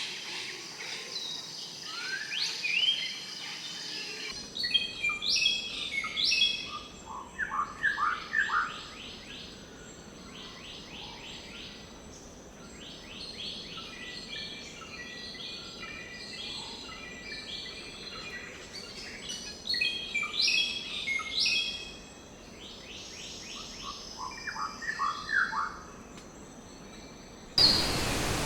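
Several birds calling and singing together: rapid high trills, short chirps and a few quick falling whistles, over a steady high thin tone. About a second before the end it cuts abruptly to a steady rushing noise.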